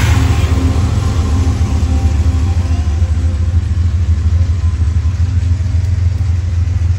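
Diesel locomotive engine rumbling steadily, with a heavy low drone.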